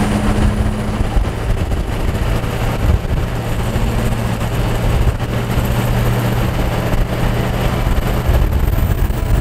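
Duramax turbo-diesel engine in a Humvee running steadily at road speed, heard from inside the cab as a low, even drone over road and tyre noise, with wind buffeting the microphone.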